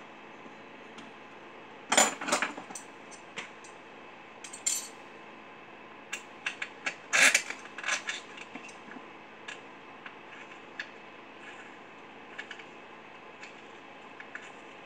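Metal tools and small parts clinking and tapping against a stripped-down Husqvarna 394 XP chainsaw as it is worked on by hand: scattered clicks and knocks, loudest about two seconds in and again around seven seconds.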